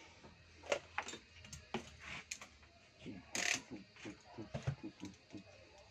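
Scattered light clicks, taps and rattles of tools and cables being handled on a workbench, with a brief hiss about three and a half seconds in.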